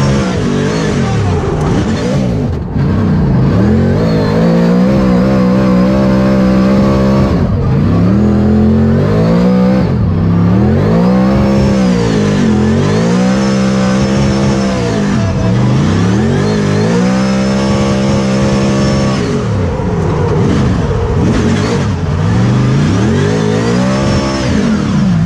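NASCAR V8 engine revving repeatedly under hard acceleration and lift-off, its pitch climbing and dropping every second or two, with a couple of longer steady pulls.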